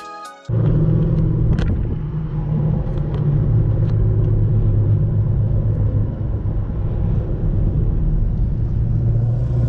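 Cammed 6.2-litre V8 of a 2010 Chevrolet Camaro SS running steadily.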